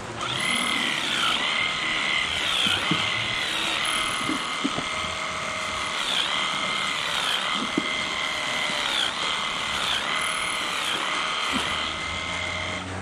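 Hand-held electric clippers running with a steady whine while trimming a dairy cow's tail switch. The pitch dips and recovers every second or so as the blades cut through the hair. The clippers start right at the beginning and stop just before the end, with a few soft knocks in between.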